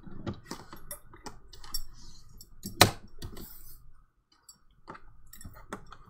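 Light clicks and taps as a manila envelope is handled on a plastic sliding paper trimmer, with one sharp, louder click about three seconds in.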